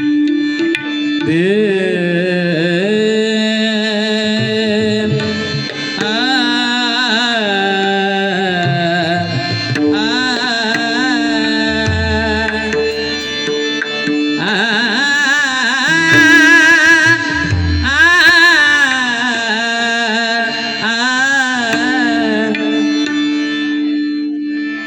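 Bhajan music: long, wavering wordless vocal lines held over a steady harmonium drone, with drum accompaniment and a few deep drum strokes.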